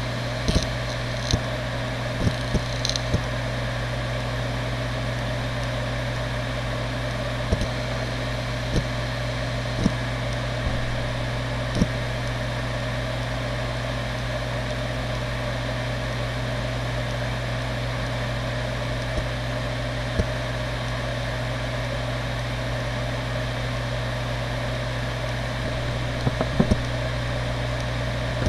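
Seagate Barracuda ES.2 ST31000640SS 7200 rpm 3.5-inch SAS hard drive spinning with a steady hum and a low steady tone, with occasional short head clicks, several in the first dozen seconds and a few near the end. It is finishing initialisation and settling into idle.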